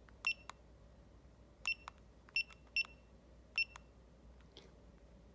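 Key-press beeps from a Retekess wireless restaurant pager unit during setup: five short, high-pitched beeps at uneven intervals, with a few faint button clicks between them.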